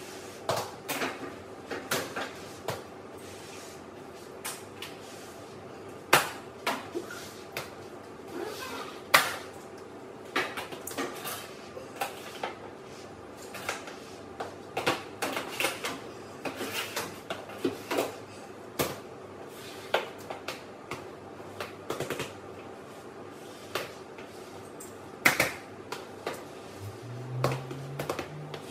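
Irregular knocks, taps and clatter of cleaning work: a long-handled floor-cleaning tool and other objects bumping against a stainless-steel table and the floor, over a steady low hum.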